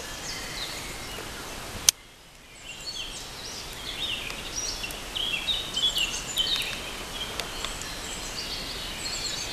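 Wild birds singing, many short high chirps over a steady outdoor background, with one sharp click about two seconds in.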